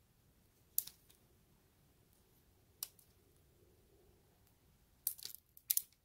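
Wood fire crackling, with scattered sharp pops: one about a second in, another near three seconds, and a quick cluster near the end.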